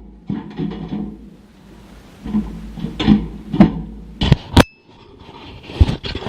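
Background music with plucked guitar notes struck about every half second to second, and a sharp click with a brief high ringing tone about four and a half seconds in.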